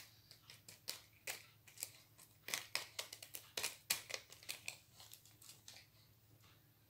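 Faint crinkling of a small plastic bag and light, irregular clicks of tiny crystal rhinestone drills tipped into a plastic storage-box compartment, thinning out about five seconds in.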